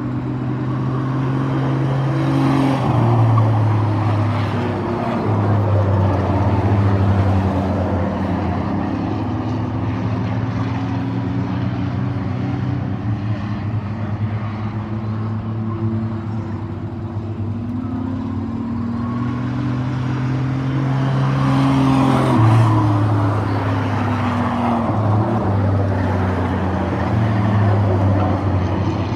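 A pack of compact stock race cars running laps on a short oval track, engines held at high revs with their pitch stepping up and down. The engine noise swells twice as the cars come past.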